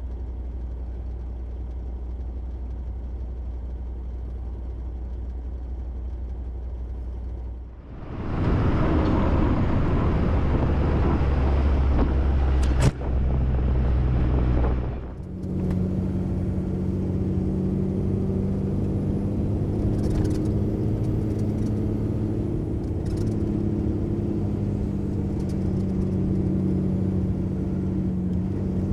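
MAN LE280B 4x4 truck's diesel engine running as it drives, with road noise. The sound changes abruptly about 8 and 15 seconds in, with a louder, noisier stretch between and a sharp click in the middle of it, and ends with a steady engine hum.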